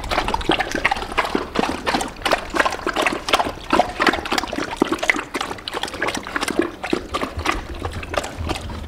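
Belgian Malinois dogs lapping water from a metal pan, many quick irregular wet laps and splashes overlapping.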